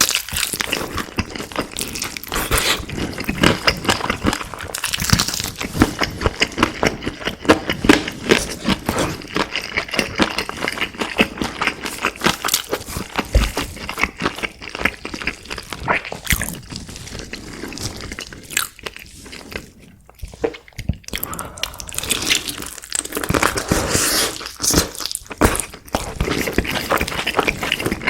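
Close-up eating sounds of crispy fried food: dense crunching bites and chewing, with a short quieter lull about two-thirds of the way through.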